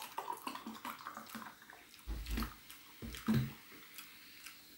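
Carbonated soft drink poured from a plastic bottle into a glass, splashing and fizzing. About two and three seconds in come two dull thumps.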